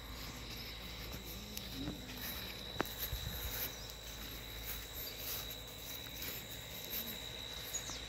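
An insect trilling: one steady, high-pitched tone that holds on and stops shortly before the end. A single sharp click sounds about three seconds in.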